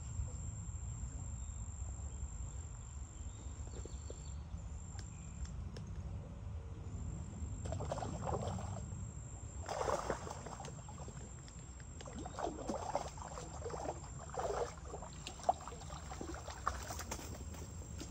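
Riverbank ambience: a steady low rumble with a thin, high, insect-like whine above it. Several short bursts of rustling come about eight and ten seconds in and again in the second half, as the wader-clad angler moves in the grass.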